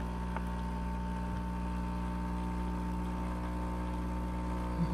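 Dolce Gusto Genio capsule coffee machine's pump running with a steady hum while it brews, pushing hot water through the capsule into the mug.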